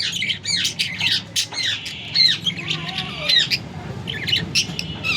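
Budgerigar chattering: a rapid, unbroken run of short chirps, squawks and clicks mixed with quick rising and falling whistles.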